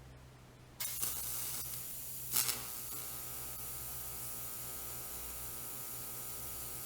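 Electric welding arc struck about a second in, with a brief louder crackle near two and a half seconds, then a steady hiss with a faint buzz through it.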